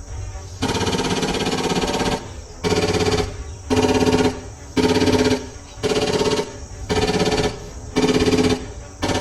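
Toy water gun's rapid-fire shooting sound, a buzzy electronic rattle at a steady pitch fired in bursts: one longer burst, then seven short ones about a second apart.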